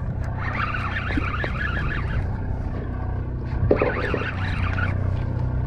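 Party boat's engine running steadily, a low drone, with indistinct higher-pitched sounds coming and going twice over it.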